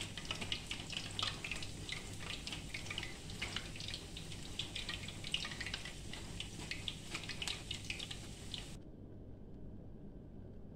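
Gemat dough balls deep-frying in a pan of hot oil, crackling and sizzling as they are turned. The frying sound stops abruptly about nine seconds in, leaving a faint low hum.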